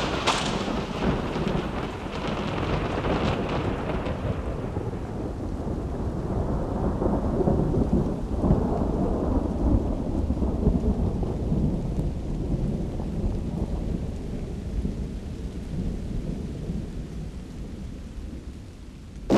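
Continuous low rumbling noise with a hiss over it during the first few seconds, fading gradually near the end.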